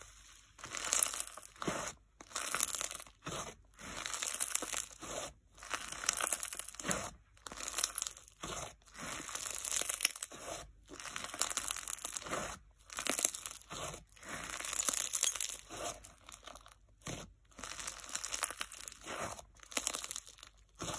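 Pink fizz slime, a base packed with instant snow, squeezed and kneaded by hand, crunching and crackling in repeated squeezes about once a second with short pauses between.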